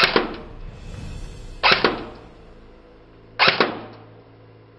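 C-TAC CT36-series airsoft electric gun firing single shots through a chronograph to measure muzzle velocity: three shots about 1.7 seconds apart, each a sharp crack followed by a second, smaller crack a moment later.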